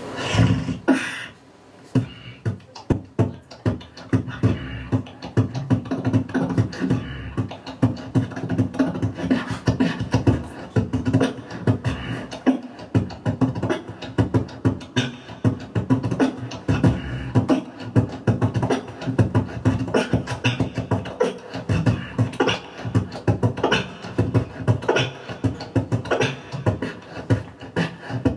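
Solo beatboxing through a cupped handheld microphone: a fast, dense rhythm of vocal kick drums, snares and clicks over a steady low hum, opening with a loud burst about half a second in.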